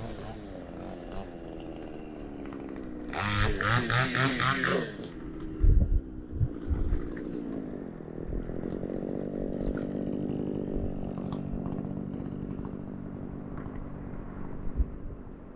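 Engines of passing motor traffic. About three seconds in, one engine revs loudly for about two seconds, there are a couple of low thumps, and then a steady engine drone continues.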